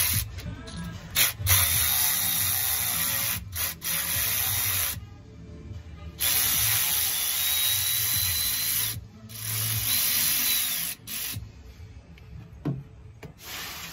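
Cordless electric ratchet spinning a socket on an oil suction pickup tube bolt of a Detroit DD15 diesel, running in about four bursts of one to three seconds with short pauses between them.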